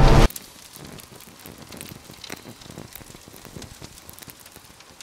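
Loud music cuts off suddenly a fraction of a second in, leaving faint, scattered crackling clicks over a light hiss.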